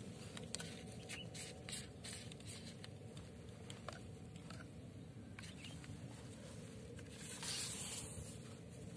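Faint outdoor ambience: a steady low rumble with scattered small ticks, and a short rustle about seven and a half seconds in.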